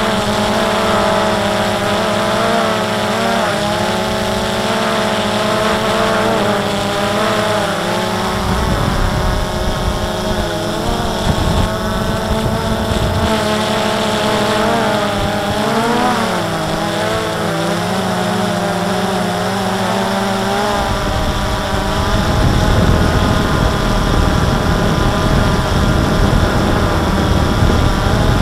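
Quadcopter's electric motors and propellers whining, heard from its own onboard camera, the pitch wavering up and down as the motors adjust. About three-quarters of the way through, the whine gives way to a louder rushing noise as the drone comes down near the ground.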